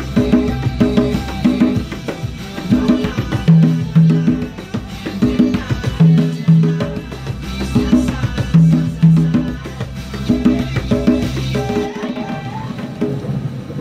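A pair of wooden conga drums played by hand in a repeating tropical Latin beat, with open tones and slaps in a steady cycle.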